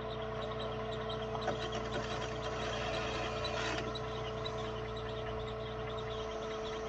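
Jeep Cherokee XJ's engine running steadily at low revs as it crawls down a rock ledge in low range.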